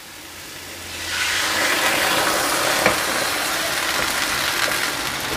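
Coconut milk poured into a hot non-stick wok of frying vegetables: a sizzling hiss builds over the first second and then holds steady as the mixture is stirred with a wooden spatula, with a light knock of the spatula near the middle.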